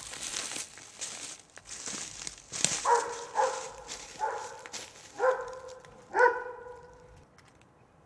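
A dog barks five times, starting about three seconds in and spaced roughly a second apart. Before that, footsteps crunch on the trail's leaves and gravel.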